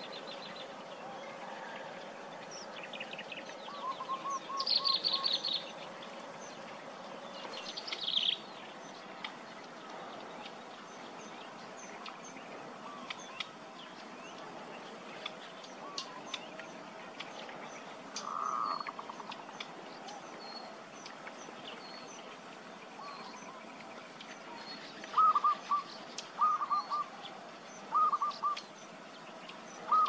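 Small birds calling, most likely Eurasian tree sparrows. Short bursts of high chirping come in the first few seconds. Near the end, louder groups of three or four quick, lower call notes repeat several times, all over a faint steady background.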